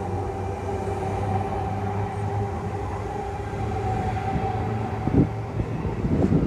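Tangara electric train at the platform giving a steady electrical hum, which fades about two thirds of the way through, followed by two short clunks near the end.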